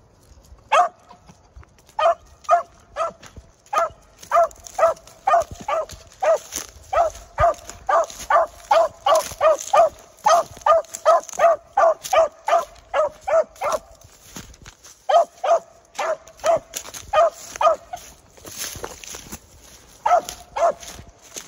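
A 10-month-old beagle giving tongue while trailing a rabbit by scent: a long run of short, even barks, about two to three a second. The barks break off briefly about two-thirds through, then come back as a short run and a few scattered barks near the end.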